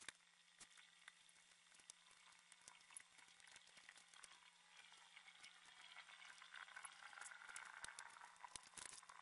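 Faint scratchy rasp of a pen stylus sketching on a graphics tablet, with scattered light clicks, growing a little louder in the second half. A low steady electrical hum runs underneath.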